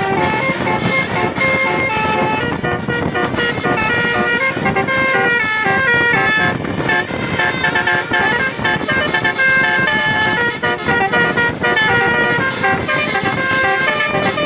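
Bus 'telolet basuri' musical air-horn set playing a melody, its notes changing quickly one after another, over a steady low rumble.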